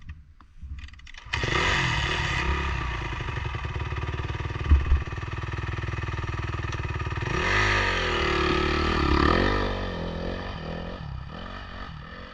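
Dirt bike engine running close by, coming in abruptly about a second in, with a sharp knock near the middle. Around eight seconds in it revs up and down, then drops back and fades.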